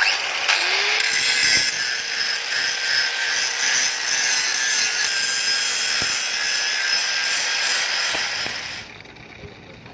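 Handheld power tool running under load with a steady, harsh grinding or cutting noise. It starts suddenly with its motor tone rising as it spins up, and cuts off about nine seconds in.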